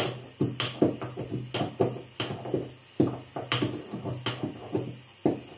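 Whole cloves being pounded to powder by hand: irregular sharp knocks, two or three a second, some with a brief ring.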